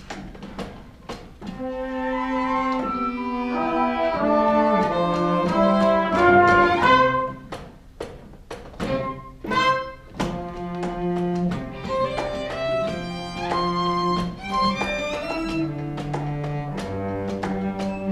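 Theatre pit orchestra playing an instrumental passage, led by bowed strings with a ticking percussion pulse, moving through held chords that swell and change.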